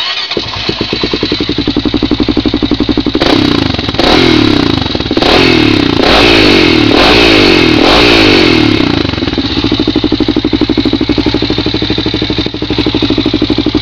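2004 Honda 400EX ATV's single-cylinder four-stroke engine running loud through a Big Gun Eco aftermarket exhaust. It is revved several times, the pitch rising and falling, then settles back to a steady, fast pulsing idle.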